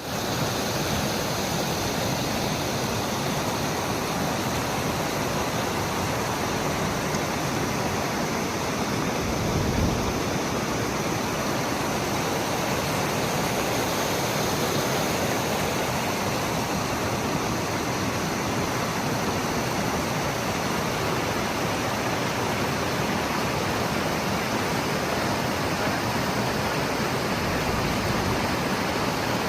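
Dudhsagar Falls pouring, a steady, even rush of falling water, with a brief low rumble about ten seconds in.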